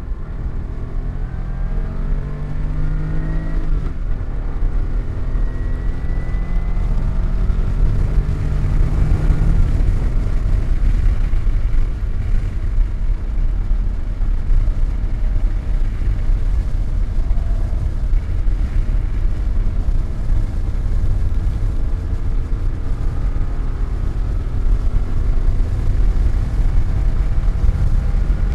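Car engine under hard acceleration on a race track, its pitch climbing and dropping back with each gear change, over a heavy steady rumble of road and wind noise.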